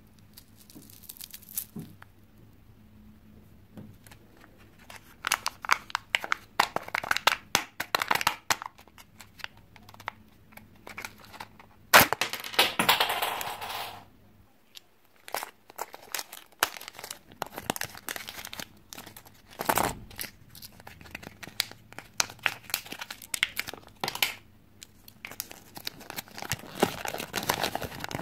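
Hands crinkling and tearing Kinder Joy packaging in irregular bursts. Near the middle comes one long, loud ripping peel of a foil seal off a plastic egg half, followed by crinkling of the toy's paper wrapper as it is unfolded.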